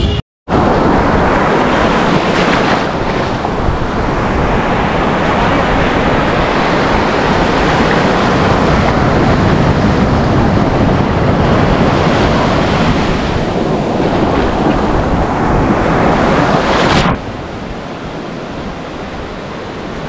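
Sea surf breaking and washing up over a sandy beach: a loud, steady rush that swells and eases with the waves, dropping to a quieter wash about 17 seconds in.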